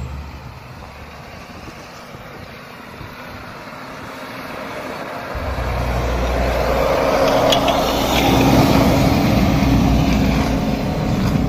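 Toyota Land Cruiser's 4700 cc V8 engine running as the vehicle drives up through snow toward the listener, with tyre noise on the snow. It grows louder from about halfway through and is loudest near the end as it passes close by.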